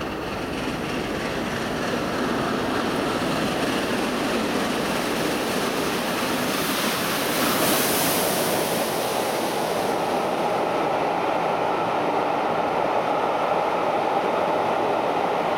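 Trains rolling along a station platform: a diesel high-speed train moving off, then the Peppercorn A1 Pacific steam locomotive 60163 Tornado passing with a rushing hiss of steam about seven seconds in, followed by the steady rumble of its coaches' wheels on the rails.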